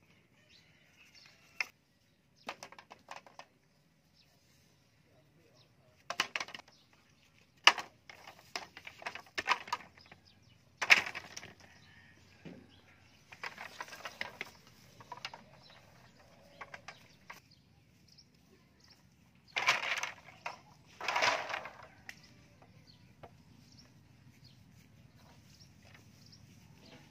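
Bamboo poles and bark lashings being handled: scattered sharp knocks and cracks as the poles strike each other, with several short bursts of rustling and scraping.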